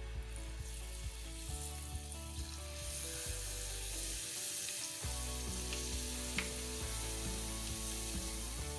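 Hot oil in a kadai sizzling as balls of jaggery-sweetened wheat-flour batter are dropped in by hand to deep-fry. The sizzling grows louder about three seconds in as more batter goes in.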